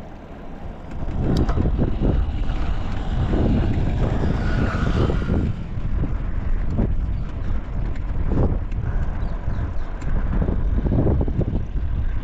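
Wind buffeting the microphone while riding a bicycle: a gusty low rumble that swells about a second in and then keeps surging unevenly.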